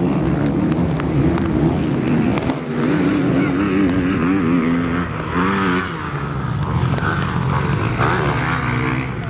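Motocross bike engines revving hard up and down as the bikes race around the dirt track, the pitch rising and falling again and again.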